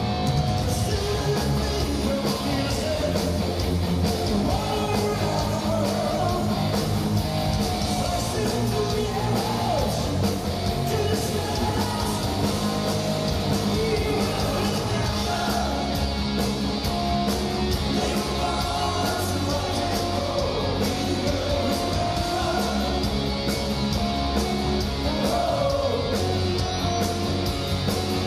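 Live heavy metal band, with electric guitars, drums and a lead singer, playing a song, recorded from among the concert crowd.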